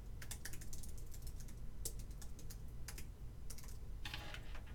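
Computer keyboard being typed on: a run of quick, irregularly spaced key clicks as a short phrase is entered.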